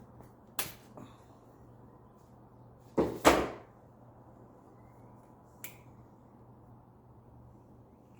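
Hands-on work at a bicycle in a repair stand: a few light clicks, then a loud double clunk about three seconds in, and one more small click near the end.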